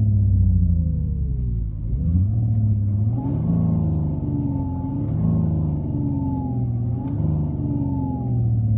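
Simulated engine sound from a Renault Clio GT's R-Sound Effect system, played through the car's speakers. The pitch falls for about two seconds, then climbs and rises and dips several times as the revs change.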